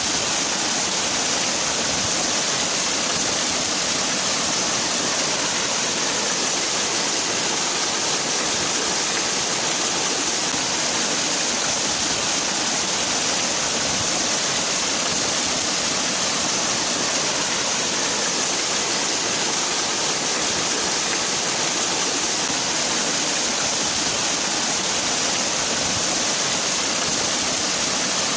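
Waterfall: water falling and rushing steadily, an even hiss strongest in the high range with no change.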